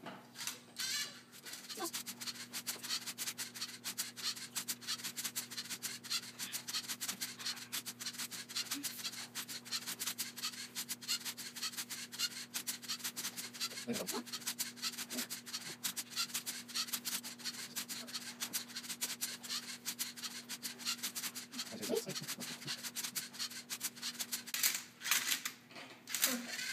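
LEGO Mindstorms 'Tilted Twister' Rubik's cube solver at work: its motors turn and flip the cube in quick succession, giving a continuous rapid clicking and scraping rattle of plastic parts and cube layers, over a steady faint hum.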